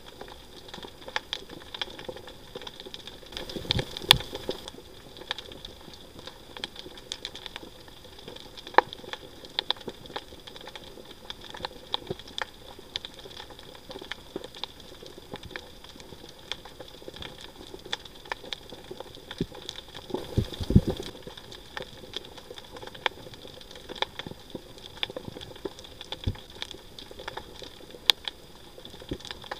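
Underwater reef crackle: a dense, steady patter of many small clicks, with some louder sharp clicks and two short low thumps, about four and twenty seconds in.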